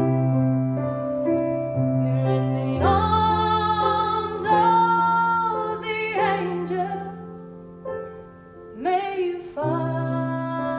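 A woman singing to her own piano-sound accompaniment on a Nord stage keyboard. The keyboard plays chords alone at first; her voice comes in about three seconds in with long, wavering held notes, pauses briefly near the end, then returns over the chords.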